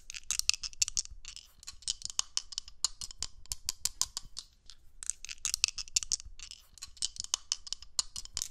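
Rolling-dice sound effect: a fast, uneven run of sharp clicks and rattles, thinning briefly about halfway through.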